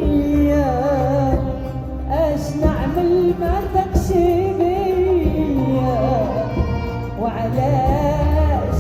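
Moroccan song played by a live ensemble: an ornamented melody line with wavering pitch over a steady bass.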